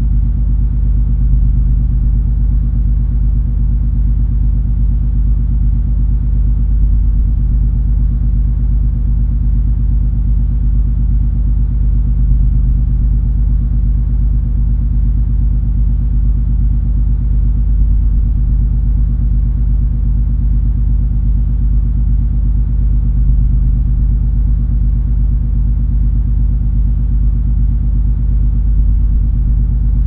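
Cruiseferry MS Color Magic's engines and machinery droning: a steady, deep rumble with a low, constant hum that does not change.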